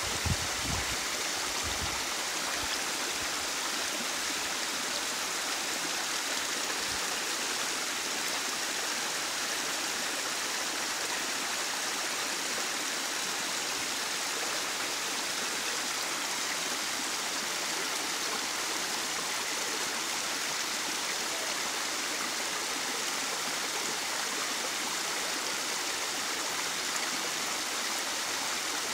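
Small waterfall pouring steadily down a narrow rocky gully and splashing over stones into the stream below: an even, unbroken rush of falling water.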